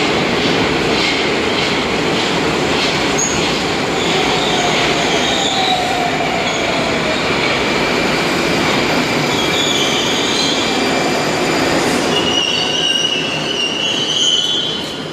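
Moscow metro 81-760A/761A "Oka" train running into the station and braking to a stop: a steady rumble of wheels on the rails with rhythmic clacks about twice a second at first, a whining tone in the middle, and a high brake squeal in the last few seconds as it halts.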